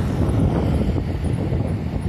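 Strong wind buffeting the microphone: a continuous low rumble with irregular gusty thumps.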